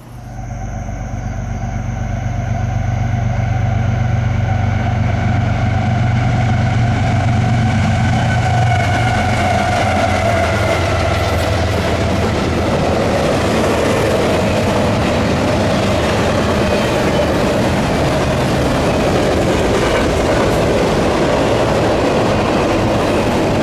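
A diesel freight train passing: a low engine drone that builds over the first few seconds and fades after about eight seconds, giving way to the steady rolling rumble and wheel-on-rail clatter of double-stack container cars going by.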